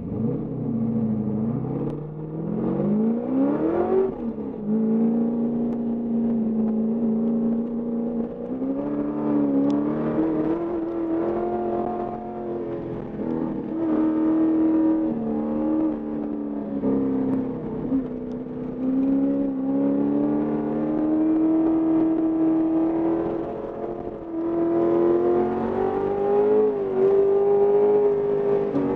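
Ford XE Falcon's 351 V8 under hard acceleration on a hillclimb run, heard from inside the cabin. The revs climb steeply, drop sharply with an upshift a few seconds in, then rise and fall with the throttle for the rest of the run.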